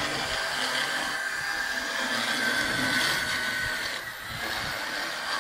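Motorized equine dental float grinding a horse's cheek teeth: a steady high whine with a rasping grind, easing briefly about four seconds in.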